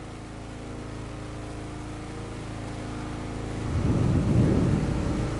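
Steady low mechanical hum from a motor or engine, with a louder rumble swelling about four seconds in and easing off again.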